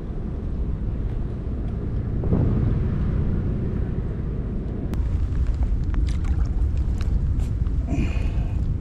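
Steady low rumble of wind buffeting the microphone, with a few light clicks and taps in the second half.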